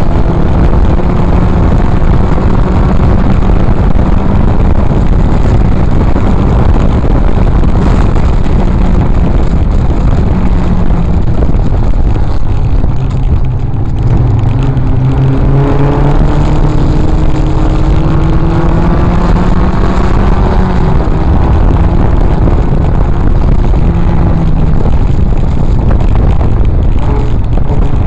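Triumph TR4A race car's four-cylinder engine under racing load, heard from the open cockpit. The revs sag about halfway through, then climb steadily again as the car accelerates.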